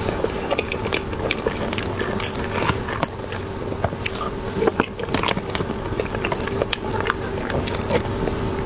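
Close-up eating sounds of soft cream cheese buns: a string of small wet clicks and crackles from biting and chewing.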